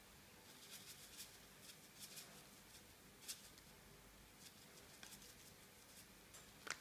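Faint, irregular light ticks and rustling from a paper packet of dried oregano being shaken out over a salad, the dry flakes pattering onto the plate.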